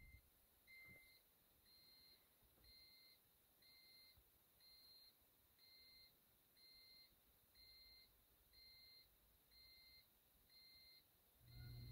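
Faint high-pitched beep repeating about once a second. A steady low hum comes in near the end.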